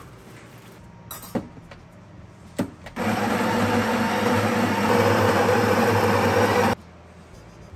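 The built-in burr grinder of a Breville espresso machine grinding coffee beans straight into the portafilter: a loud steady grinding that lasts nearly four seconds and cuts off suddenly. Before it come two sharp clicks.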